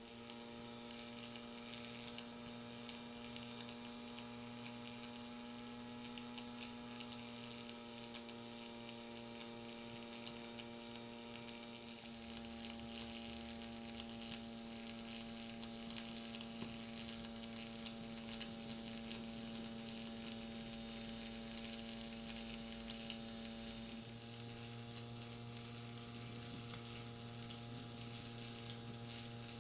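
Miniature alcohol-fired vertical-boiler toy steam engine running: a steady hum over a sizzling hiss with many small crackling ticks from the boiling water and burner.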